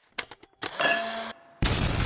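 Added sound effects: a few quick clicks, then a short pitched burst, then a sudden loud boom about a second and a half in.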